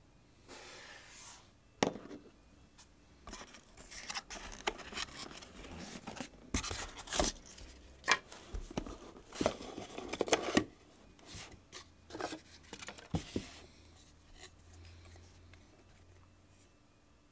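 Handling noises from a metal lens hood, a cardboard box and a clear plastic lens case on a desk: a run of sharp clicks and knocks with short scraping and rubbing sounds, dying down a few seconds before the end.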